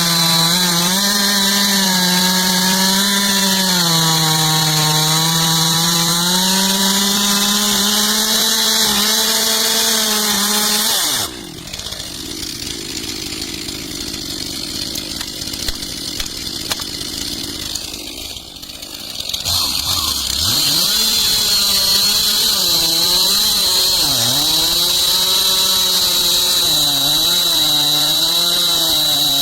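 Chainsaw running at high revs and cutting, its engine pitch sagging and recovering under load. About eleven seconds in it drops to a quieter lull. Near twenty seconds it revs back up and cuts again, the pitch dipping repeatedly as the chain bites.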